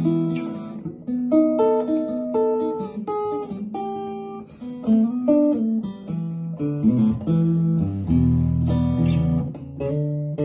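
A 1960s German Musima parlor acoustic guitar being played: plucked single notes and chords, with deeper bass notes ringing out from about eight seconds in.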